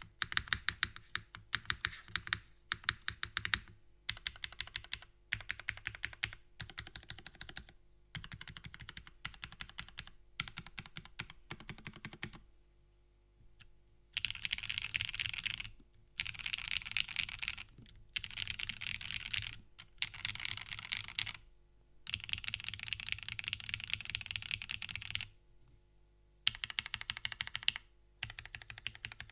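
Typing on a Constance TKL mechanical keyboard: a top-mount, aluminium-plate, foamless build with lubed and filmed Cherry MX Black Ultraglide linear switches and GMK keycaps. The typing comes in runs of rapid key clacks broken by short pauses, and the runs get faster and denser in the second half.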